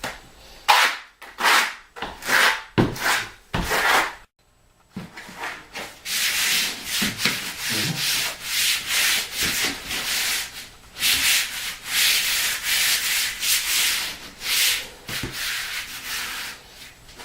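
Trowel scraping thin-set mortar across a concrete slab in repeated strokes. A few separate strokes come first, then from about six seconds a near-continuous run of back-and-forth scraping.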